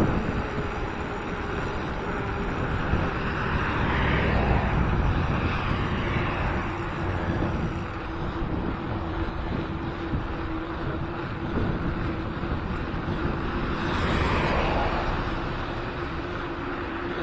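Wind rushing over an action camera's microphone while riding a mountain bike, with a steady low hum under it. The noise swells twice, about four seconds in and again near the end.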